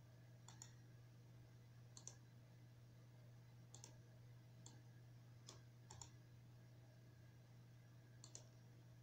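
Faint computer mouse button clicks, each a quick press-and-release pair, coming every second or so at irregular spacing, over a steady low hum.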